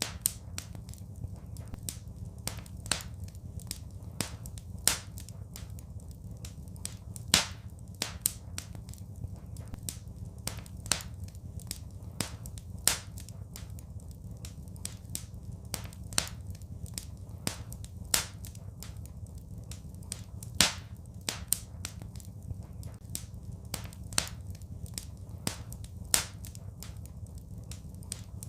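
Wood fire crackling in a fireplace: irregular sharp snaps and pops, a few much louder than the rest, over a steady low rumble.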